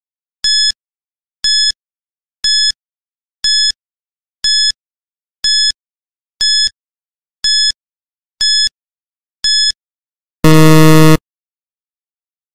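Quiz countdown-timer sound effect: ten short high beeps, one a second, then a loud low buzzer lasting under a second as time runs out.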